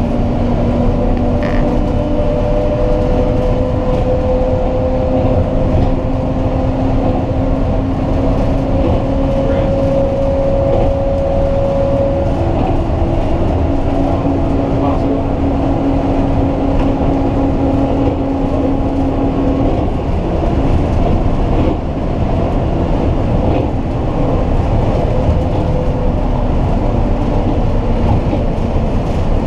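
Ride on a passenger train: a steady rumble of running gear with a hum that slowly rises in pitch over much of the ride.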